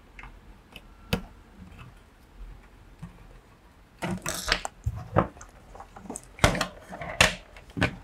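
Small clicks and scrapes of a screwdriver working a wire into the screw terminals of a plastic-cased relay board, with one sharp click about a second in. From about halfway, louder clattering and rustling as the board and its cables are picked up and handled, with a few sharp knocks.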